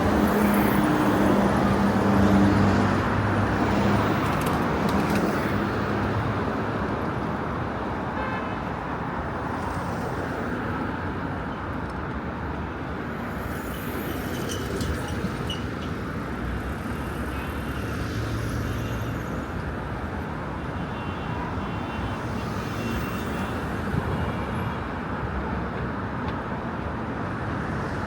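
Road traffic: a steady wash of passing vehicles, with a low pitched tone, like a horn or engine note, in the first few seconds.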